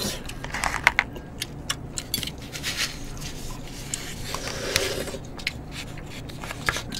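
Eating sounds from a pork backbone from bone hangover soup: scattered small clicks and taps of chopsticks and bone against a plate, with chewing as the meat is gnawed off the bone.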